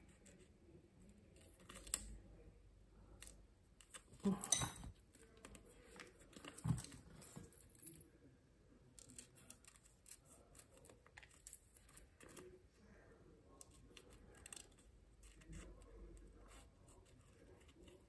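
Small fine-tipped craft scissors snipping close around a little embellishment: a run of quiet, irregular snips and clicks, with a louder handling sound about four and a half seconds in.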